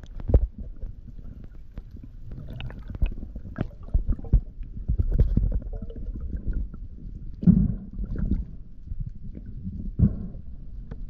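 Muffled underwater noise picked up by a camera underwater: a low, uneven rumble of moving water with scattered knocks and clicks, the loudest a thump about seven and a half seconds in.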